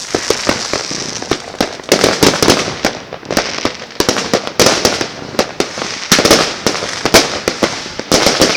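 Fireworks and firecrackers going off all around, dozens of sharp bangs in quick irregular succession with bursts of crackling, the densest clusters about two, four and a half, six and eight seconds in.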